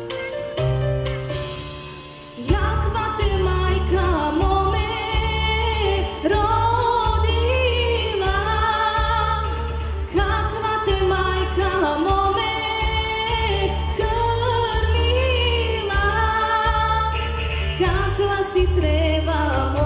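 A woman singing a Bulgarian folk song over instrumental accompaniment with a pulsing bass. A short instrumental passage comes first, and the voice enters about two and a half seconds in.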